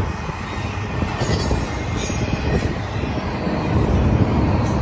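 Union Pacific double-stack intermodal container cars rolling past, with a steady rumble of steel wheels on the rails that grows a little louder near the end.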